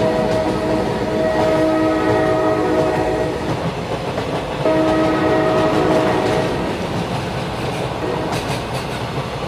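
Fan-made train-monster sound effect built from train recordings: a train horn blows in three long blasts over the continuous rumble of a running train. The last blast stops about six and a half seconds in, leaving the train noise.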